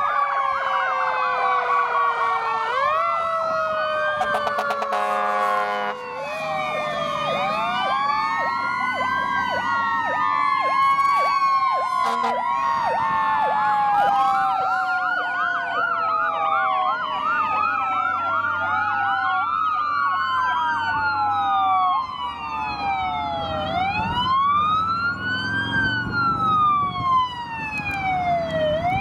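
Several emergency vehicle sirens sounding at once, overlapping wails and yelps rising and falling in pitch as a line of fire trucks passes. Truck engines rumble beneath.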